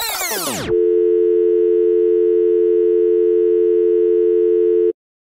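Telephone dial tone: two steady tones held together for about four seconds, then cut off abruptly. It is preceded by a sweeping sound effect that falls away in pitch in the first second.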